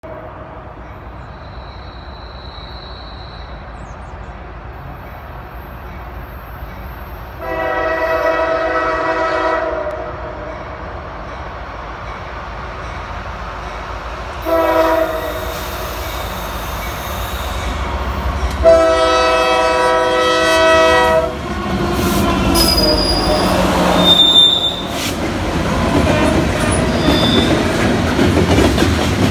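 Norfolk Southern coal train approaching behind a GE AC44C6M diesel locomotive, its air horn sounding a long blast, a short one and another long one, then the locomotives passing close by with a heavy rumble as the coal hoppers follow, wheels clacking over the rail joints with a few brief squeals.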